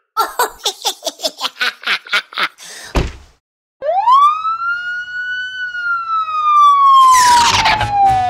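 A run of quick rhythmic pulses ending in a thump, then a single police-siren wail that rises, holds and slowly falls away. A sweeping whoosh comes in near the end.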